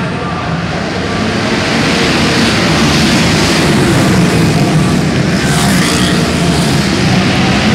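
Dirt-track racing motorcycles running hard as they pass along an indoor short track, the engine noise growing louder about two seconds in as the bikes go by.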